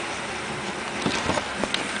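HO-scale Athearn streamlined diesel passenger train running on its track, a steady whir of motor and wheels. Several light knocks come about a second in.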